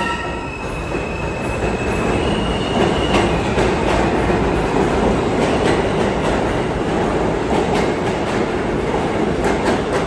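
R160B subway train with Alstom propulsion accelerating out of the station. A high motor tone fades in the first few seconds into the steady rush of steel wheels on rail, with repeated rail-joint clicks as the cars pass.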